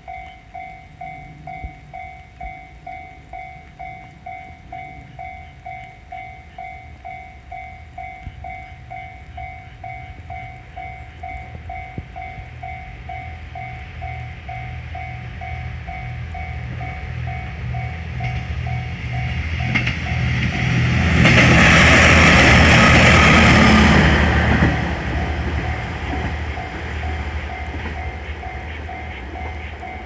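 Japanese level-crossing alarm bell ringing "kan-kan" about twice a second. A KiHa 120 diesel railcar approaches, its engine rumble building, and passes loudly about 21 to 25 seconds in, then fades. The bell stops at the very end.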